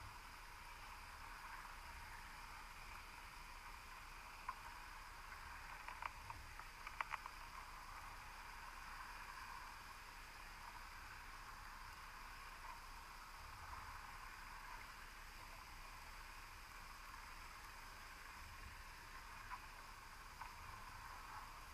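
Faint, steady underwater hiss picked up by a GoPro sealed in its housing on the seabed, with a few faint sharp ticks about six to seven seconds in and once or twice near the end.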